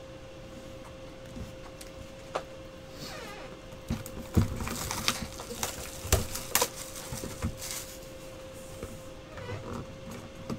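Cardboard trading-card boxes being handled, set down and opened on a desk: scattered knocks and taps with some rustling, over a steady faint hum.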